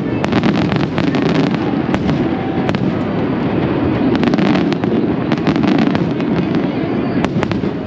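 Fireworks bursting: clusters of sharp crackling pops, thickest in the first second and a half and again from about four to six seconds in, over a steady low din.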